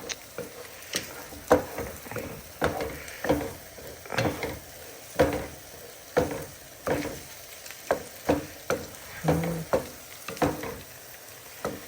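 Eggs and garlic frying in a hot pan while a spatula stirs them: repeated clacks and scrapes of the spatula against the pan, roughly every half second, over steady sizzling.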